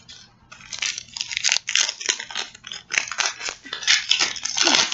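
Crinkly packaging being torn open and crumpled by hand off a notebook. It makes a rapid, irregular crackling that starts about half a second in.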